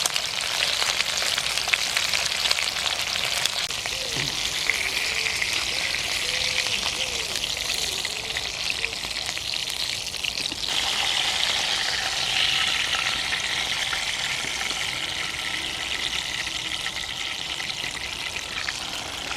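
Sausages and bacon sizzling in a pan on a Bushbox XL camping stove: a steady, dense crackle of frying fat that changes a little past halfway, with a faint thin whistling tone added.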